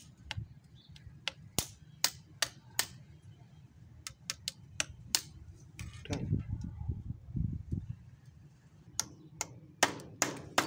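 Sharp, irregular clicks and taps of a flat metal blade against a small glass medicine vial as its cap seal is worked off. There is duller handling noise around the middle, and the clicks come faster near the end.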